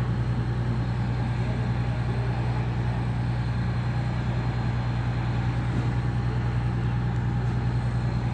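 Steady low mechanical hum with a slight regular pulse, unchanging throughout, like a machine or engine running.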